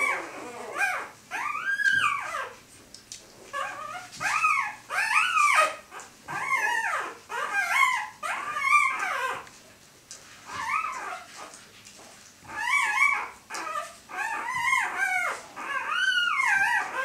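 Four-day-old Siberian husky puppies whining and squeaking as they nurse: strings of short high calls, each rising then falling in pitch, in bursts with brief lulls about three seconds and ten seconds in.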